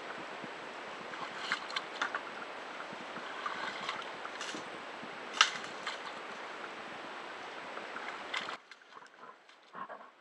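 Water sloshing around a plastic kayak as it is towed through shallow water, with a few sharp knocks as the hull and branches brush and bump. About eight and a half seconds in, the sound drops away to a much quieter background.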